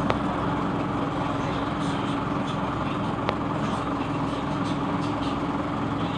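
Passenger-cabin noise of a Scania NewOmnicity city bus: a steady drone from the engine and running gear with an even hum throughout. There are two sharp clicks, one right away and one about three seconds in.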